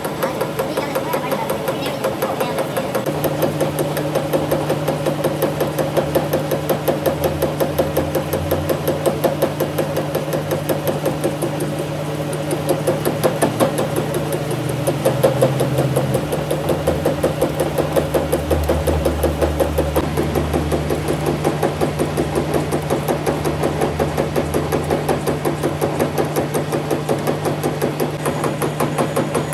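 Metalworking machine running steadily with a fast, even knocking rhythm of several strokes a second over a steady hum.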